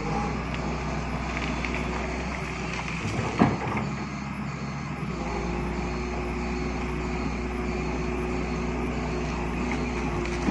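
Excavator's diesel engine running steadily, its low note shifting about five seconds in, with a short sharp knock about three and a half seconds in and another near the end.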